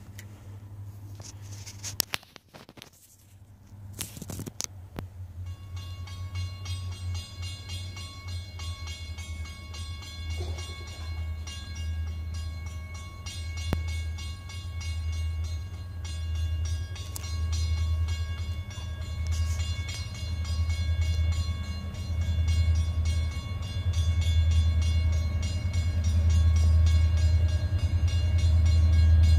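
An EMD SD40-2 diesel locomotive, with its 16-cylinder two-stroke engine, approaching. Its deep engine rumble grows steadily louder as it nears. Faint steady high tones sound above it from about five seconds in.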